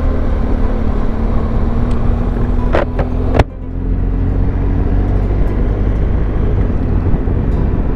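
Wind rush on a helmet-mounted microphone over the steady running of a BMW R1200GS flat-twin engine at road speed. A few sharp clicks come about three seconds in, after which the rush sounds duller.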